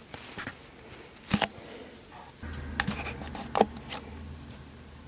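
A handful of irregular taps on the low-profile keys of a Logitech K380 wireless keyboard as it is tried out just after pairing. Under the taps, a faint low hum starts about halfway through and fades near the end.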